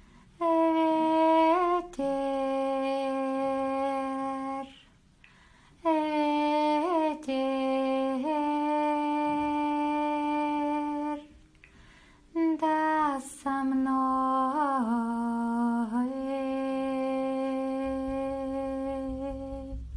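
A woman's voice humming long, wordless held notes in several phrases with short breaths between them, the pitch dipping and sliding at the end of each phrase. A low beat starts near the end.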